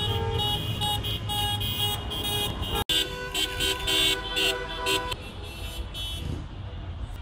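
Car horns honking in celebration, several pitches sounding at once in short and held blasts from a line of flag-decked cars. The honking drops out for an instant about three seconds in and mostly stops about two seconds later, leaving engine and traffic noise.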